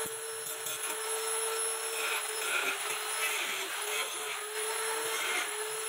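Electric angle grinder with a cutting disc cutting through PVC pipe: a steady motor whine over a harsh grinding hiss, its pitch wavering slightly as the disc bites into the plastic.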